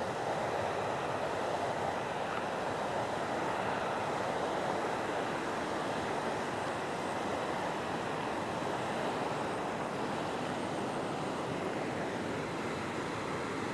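Steady rushing of a fast-flowing stream running over rocks, an even noise without breaks.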